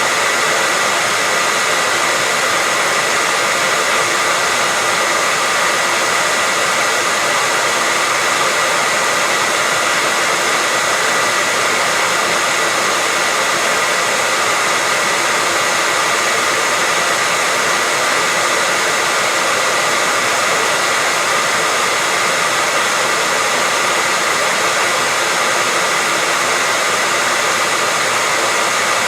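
Hair dryer running continuously at a steady speed: an even rush of air noise with a constant high whine from the motor and fan.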